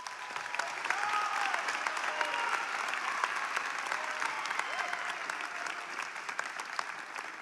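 Audience applauding, building up in the first second and thinning out near the end, with a few voices among the clapping.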